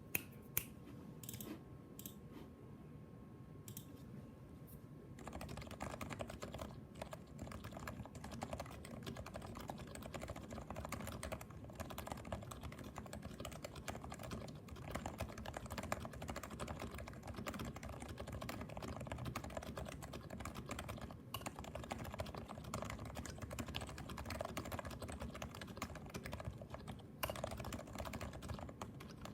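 Leopold FC660C keyboard with Topre switches being typed on: a few separate keystrokes, then fast continuous typing from about five seconds in. The board is modded to be quieter, with its spacebar stabilizer, slider rails and PCB lubed with 205g0 and its case lined with heavy foam.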